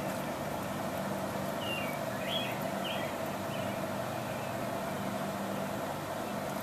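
Steady hum of a distant motor, with a few short, high bird chirps about one and a half to three and a half seconds in.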